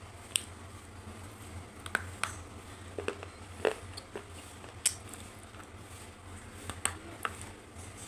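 Close-up crunching of something brittle, heard as sharp single cracks and snaps at irregular intervals, over a steady low hum.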